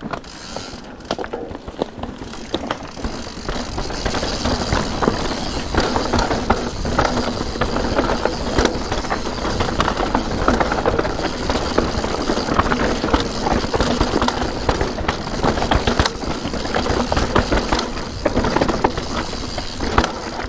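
Santa Cruz Nomad 4 mountain bike riding fast down a rough, rocky dirt trail, heard from the handlebar: tyres crunching over dirt and stones with constant rattling and knocking from the bike over the bumps. The noise grows louder over the first few seconds and stays loud.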